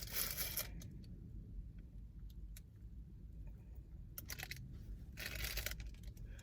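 Plastic snack packaging being handled, rustling and crinkling in a few short bursts with small clicks in between.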